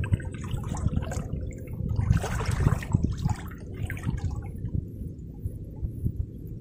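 Water sloshing and splashing around a person wading chest-deep through swamp water, in irregular surges that are busiest about two to three seconds in.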